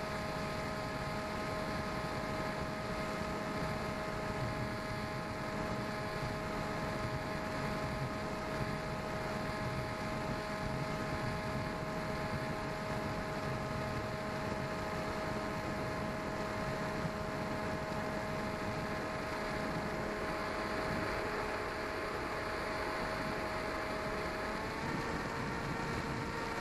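Small electric RC plane's custom-wound 1600 kV brushless motor and propeller whining steadily over a rush of air, heard from the onboard camera. The pitch of the whine shifts with a change in motor speed just as it begins and again near the end.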